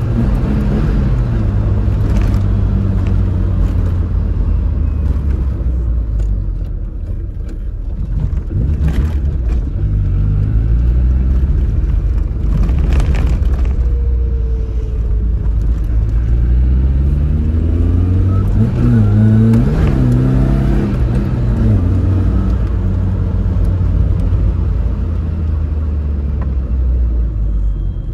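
Tofaş Doğan SLX engine and exhaust revving hard as the car is driven in slides, the engine pitch climbing and dropping several times, with the revs peaking about two-thirds of the way through.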